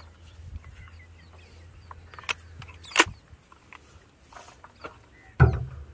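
Handling sounds of a break-barrel air rifle being cocked and loaded: two sharp clicks a little over two and three seconds in, then a louder knock near the end. Faint bird chirps throughout.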